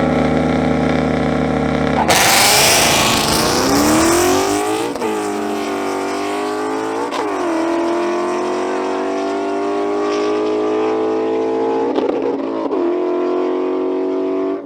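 Car engine pulling hard at full throttle: after a steady hum it surges with a loud rush about two seconds in, then climbs in pitch and drops back at quick gear changes about five and seven seconds in, climbs slowly in a higher gear, and changes twice more near the end.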